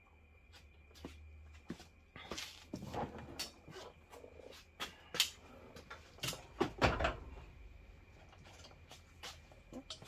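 Irregular clicks, taps and light knocks of hands handling wires, connectors and tools during wiring work, with a few sharper knocks around the middle.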